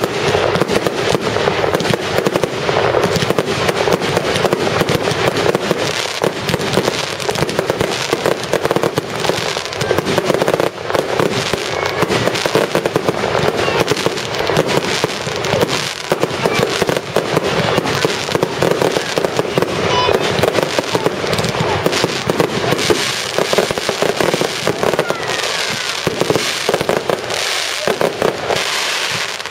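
Fireworks display going off as a dense barrage: rapid, overlapping bangs from many shells bursting at once, with no pause.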